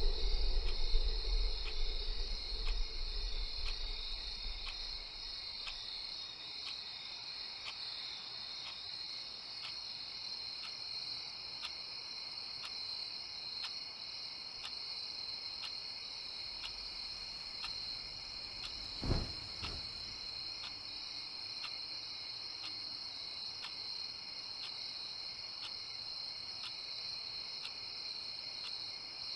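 A steady high chorus of crickets, with faint ticks repeating about one and a half times a second. A low rumble dies away over the first few seconds, and a single short low thump comes about two-thirds of the way through.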